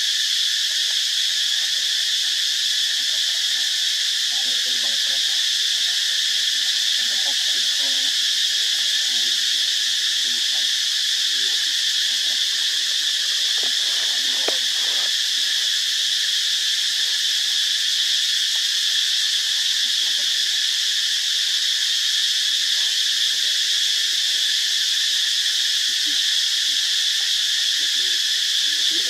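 Dense, steady chorus of insects: a continuous high buzzing that never breaks or changes in loudness.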